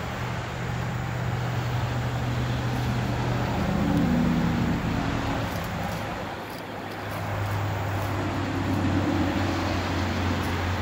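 Low engine hum of nearby motor vehicles, swelling about four seconds in, dipping briefly a little past six seconds, then rising again.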